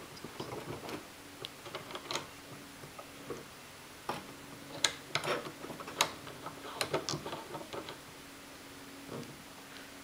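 Light, irregular plastic clicks and taps as the small turn knob is screwed back onto a plastic TV stand, with a cluster of clicks in the middle. A faint steady hum lies underneath.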